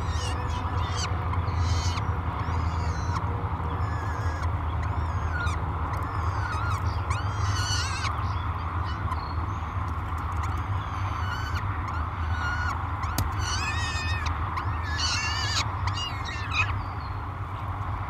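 Peregrine falcon chick giving repeated high, wavering food-begging cries while being fed, in clusters with short gaps, over a steady low rumble.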